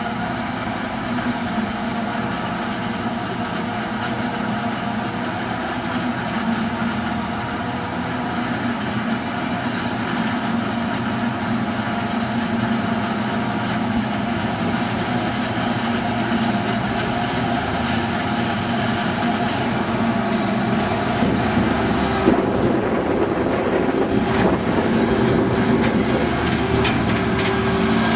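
Ford 8670 tractor and a forage harvester running together while chopping maize into the trailer: a steady heavy engine din that grows gradually louder as the tractor and trailer come close near the end.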